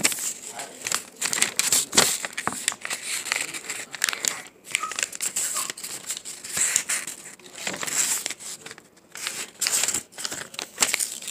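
A sheet of lined notebook paper being handled and folded close to the microphone, with irregular crinkling and rustling and sharp crackles throughout.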